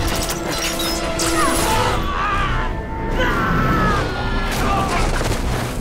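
Film action soundtrack: an orchestral score with gliding tones, cut through by several sharp crashing impacts.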